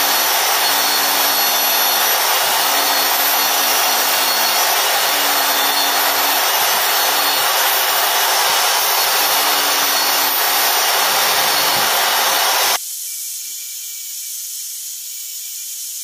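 Evolution 400 W power file, a narrow-belt file sander, grinding down a weld bead on metal, its abrasive belt running steadily against the weld. It stops suddenly about 13 seconds in, leaving a quieter steady hiss.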